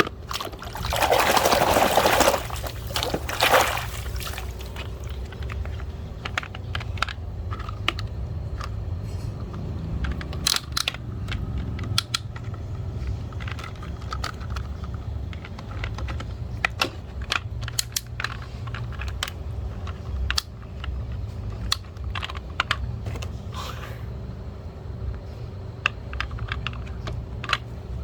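A loud rush of water, with a shorter second gush, then many scattered small clicks and knocks of plastic toys being handled.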